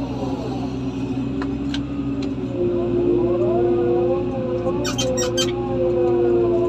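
Engine of heavy machinery running steadily; a few seconds in its pitch rises and holds higher, as if revving up. A few sharp clicks sound about five seconds in.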